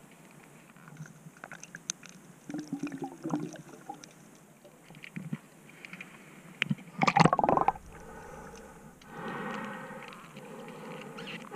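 Heard underwater: small clicks and knocks of rocks and shells being moved by hand on a creek bed, then a loud bubbling burst about seven seconds in, followed by a steady hum.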